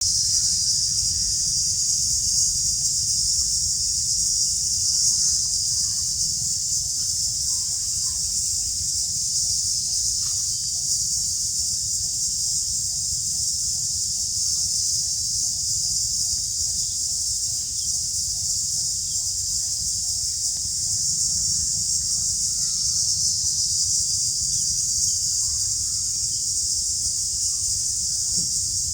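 Steady high-pitched insect chorus, like cicadas or crickets, over a low rumble of wind on the microphone, with a faint evenly pulsed tone that stops a little before the end.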